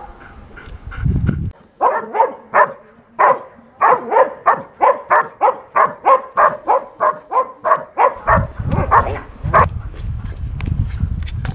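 German shepherd barking in a fast, steady series, about three barks a second, as a protection-trained dog barks at a helper in the hide during the bark-and-hold. A low rumble runs under the last few seconds.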